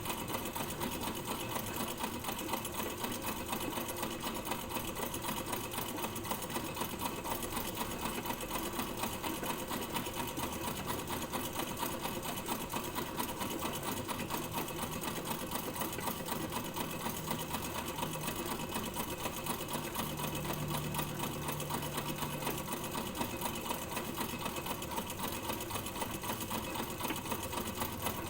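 Sewing machine running continuously at a steady speed, its needle mechanism making a fast, even rattle.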